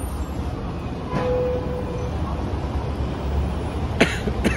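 Steady low rumble of city street traffic, with two short coughs about half a second apart near the end.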